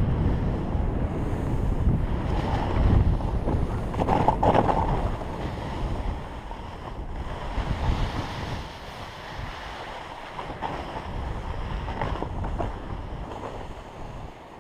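Wind rushing over a helmet-mounted action-camera microphone, mixed with a snowboard's hiss and scrape over wind-packed snow during a fast descent, with one louder scrape about four seconds in. The noise eases off through the second half as the rider slows.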